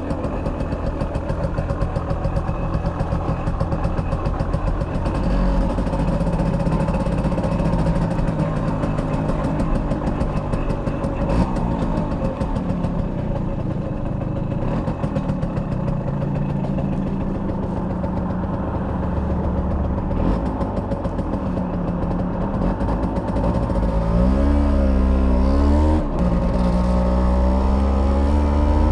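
Stock Simson S51B moped's single-cylinder 50cc two-stroke engine running under way, its revs rising and falling. About 24 s in it grows louder with the pitch climbing, then briefly dips a couple of seconds later before pulling on.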